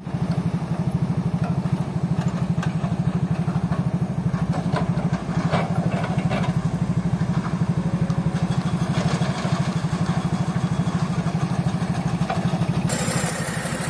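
Engine running steadily with a fast, even low pulse, with scattered clanks in the first half.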